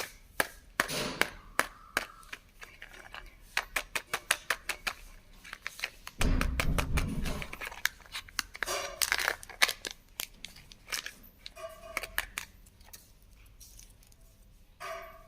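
Kinder Joy plastic egg and its wrapping being handled and opened by hand: a run of sharp plastic clicks and crackles, with a denser, louder crinkling rustle about six seconds in.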